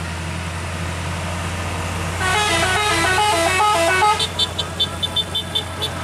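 A bus's multi-tone musical air horn ("telolet basuri") plays a quick stepping tune about two seconds in, over the steady low drone of heavy vehicle engines. It ends in a fast string of about eight short, high beeps.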